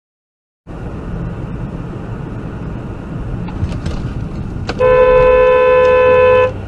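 Road and engine noise from a moving car, then a car horn sounds in one long steady blast of about a second and a half.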